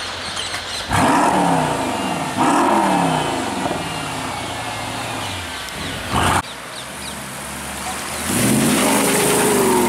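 Supercar engines accelerating hard. The first comes in loud and suddenly about a second in, its note falling again and again. A short sharp burst of noise follows just after six seconds, and a second loud engine run, rising then falling, begins near the end.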